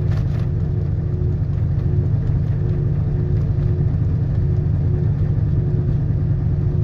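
Steady low rumble of a car running, with a faint hum that comes and goes.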